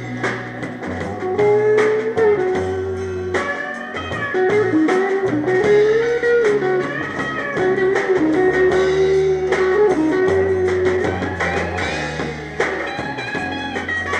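Live rock band playing an instrumental break: an electric guitar lead line with bending, held notes over bass guitar and drums.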